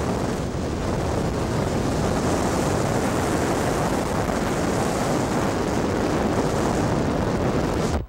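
Steady rushing noise of a car driving along a road: road and wind noise with wind buffeting the microphone.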